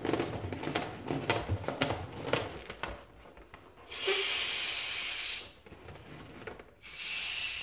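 Air hissing out of the neck of an inflated latex balloon in two releases, a steady high hiss of about a second and a half each, the second starting about seven seconds in. The balloon is being partly let down to shift a twisting balloon inside it. Before that, hands rub and squeeze the latex, making short squeaks and clicks.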